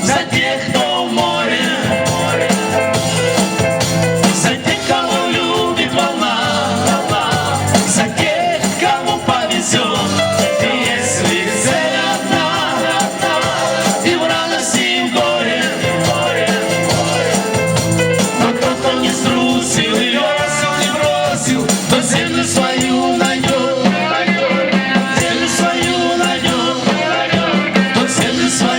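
A band playing a song, with drums and shaker-type percussion keeping a steady beat.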